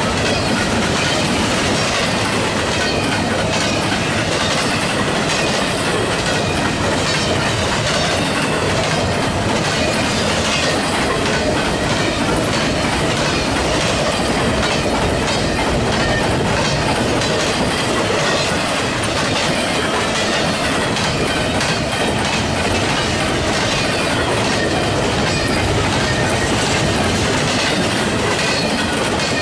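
Double-stack intermodal container train's well cars rolling steadily past, wheels clacking over the rail joints, with a thin, wavering high squeal from the wheels on the rails.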